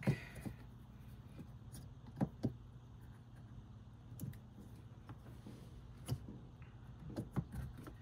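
Gear shift knob of a 2024 Subaru Crosstrek being pushed and worked back onto the shifter lever: scattered light clicks and knocks, a few seconds apart.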